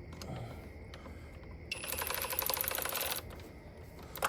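A ratchet clicking rapidly for about a second and a half as a fastener is turned, with a few scattered tool clicks around it.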